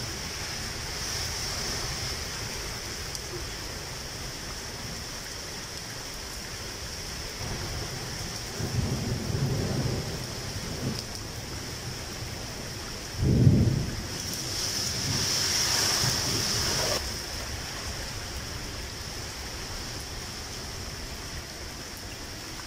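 Thunder over a steady rain hiss: a low rumble about nine seconds in, then a sharper, louder thunderclap a little past halfway, followed by a few seconds of louder hiss.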